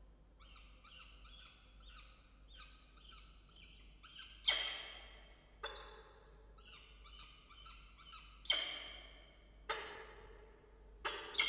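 Peregrine falcon chick begging with a rapid run of short high-pitched chirps, about three a second, while being fed. Three much louder, harsh calls break in about four and a half, eight and a half and eleven seconds in, each ringing on briefly.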